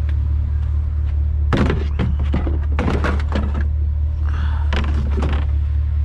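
Several irregular thuds and clunks, like heavy junk being handled and moved, over a steady low hum of an idling vehicle engine.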